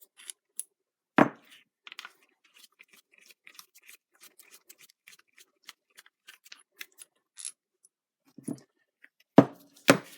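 Metal clicks and clinks as the two pre-loosened bolts are taken out of a Farmall Cub hydraulic pump housing, with a sharp knock about a second in and three louder knocks near the end as metal parts are handled and set down.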